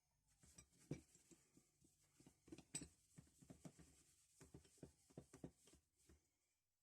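Faint, irregular small clicks, taps and light rubbing from handling the parts of an old adjustable wrench.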